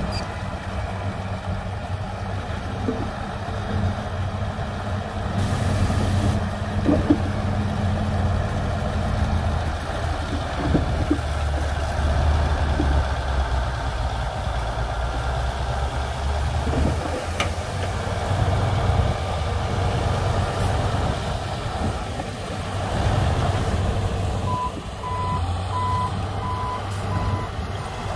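Heavy diesel earthmoving machinery running with a steady low engine hum; near the end a reversing alarm starts beeping in even, repeated beeps.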